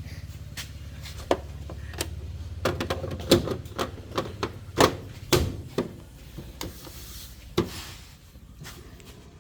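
LG washing machine starting its cycle after Start is pressed: a low motor hum with a series of clicks and knocks for about six seconds, then quieter with a few more clicks.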